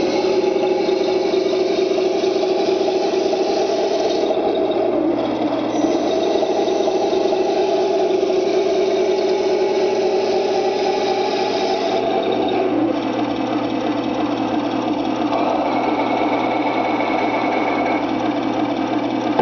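Simulated tank diesel engine running from the Tamiya sound unit of a 1/16 scale T-55A RC tank. Its pitch dips briefly about four seconds in and shifts again about twelve seconds in.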